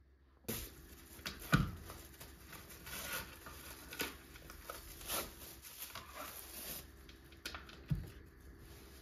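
Plastic cling film crinkling and rustling as it is peeled off a log of minced meat, with two dull thumps, a loud one about a second and a half in and another near the end.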